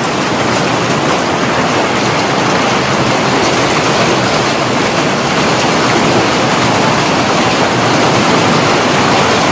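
Heavy hailstorm with torrential rain: hailstones and rain pelting the pavement in a dense, steady hiss of countless impacts.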